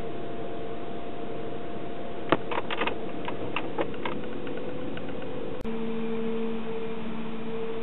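Steady hum of the Think City's cabin blower fan running on its lowest setting. From about two to four seconds in comes a run of sharp clicks as the heating control knob is turned. Near the end the sound switches abruptly to a different steady hum with a lower tone.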